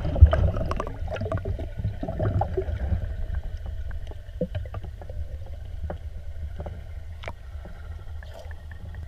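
Muffled water sound from a submerged action camera: a steady low rumble with scattered small clicks and knocks, one sharper click about seven seconds in, slowly growing quieter.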